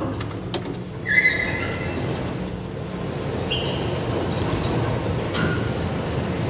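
Feed drive of an SBTs-480 Altai cant-making sawmill running, with a steady motor hum and the rumble of the feed mechanism. Short metallic squeals come about a second in and again twice later.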